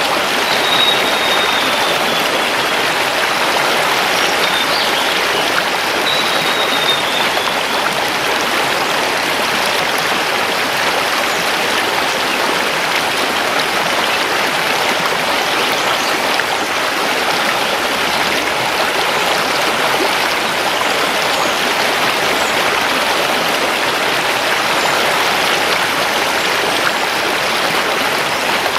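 River water rushing steadily over stones, an even, unbroken rush. A bird gives a few faint, high, slightly falling whistles in the first seven seconds.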